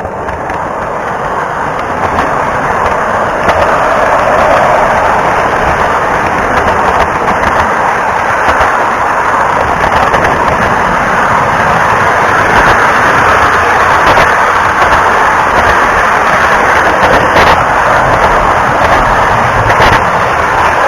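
O scale model train rolling along the track, recorded up close by an action camera riding on a car behind it: a loud, steady rolling rumble with a few sharp clicks scattered through it.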